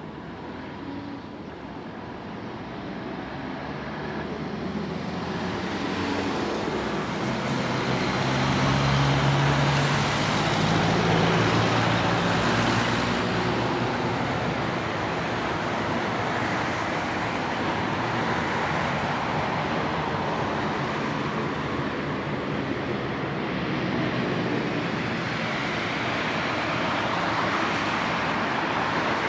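Jet engine noise of a Boeing 787-8 Dreamliner's GEnx turbofans on landing approach: a steady rumble that grows louder over the first several seconds. It is loudest about ten seconds in, where a low hum falls in pitch, and then holds at a steady level while the jet descends to the runway.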